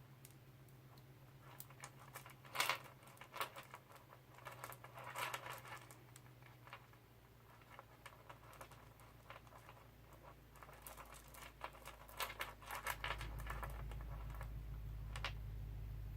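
Bracelet beads clicking and rattling against each other in short clusters of small clicks as they are handled and threaded onto elastic cord, over a low hum that grows louder near the end.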